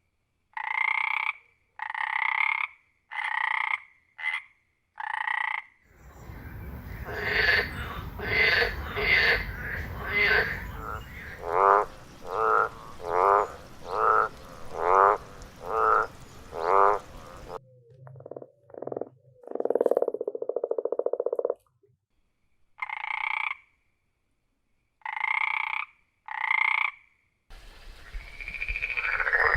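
Frogs croaking, in several recordings cut together. First come short calls about once a second. Then there is a faster run of trilled calls over a steady background hiss, a lower buzzing call around twenty seconds in, and the short calls again near the end.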